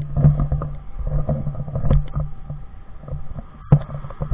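Truck driving along, heard from inside the cab: a steady low hum that breaks off briefly near the end, with scattered sharp knocks and clicks.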